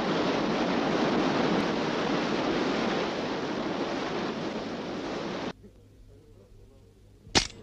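Steady rushing wind noise over the mountain scene, fading slightly and cutting off abruptly about five and a half seconds in. After a quieter moment, a single sharp knock near the end, from a swinging wooden hammer.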